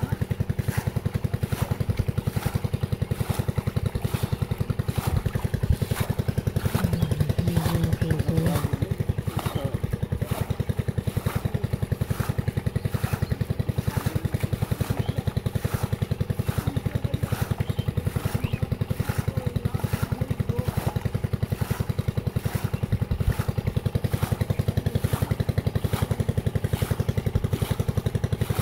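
A small engine running steadily at a constant speed, with an even beat and a faint regular click about twice a second.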